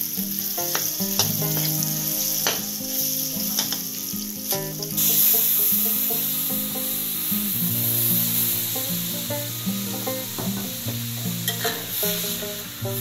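Acar spice paste frying in hot oil in a wok, sizzling steadily as a spatula stirs it and scrapes the pan, with occasional clicks. The sizzle grows louder about five seconds in.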